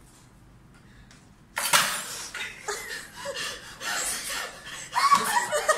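Women laughing and giggling, breaking out suddenly about a second and a half in after a quiet moment and carrying on loudly.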